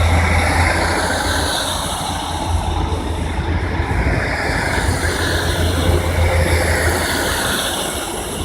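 Northern Rail passenger train pulling out of the station with a steady low drone, easing off slightly toward the end as it moves away.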